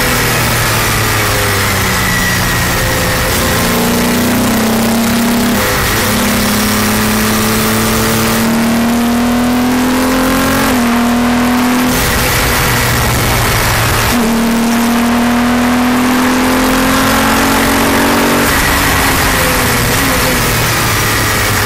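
Palmer Jaguar JPLM race car's engine accelerating hard through the gears, recorded onboard. Its note climbs and drops back at each upshift, eases off briefly about halfway, then climbs again, with heavy wind rush over the open cockpit.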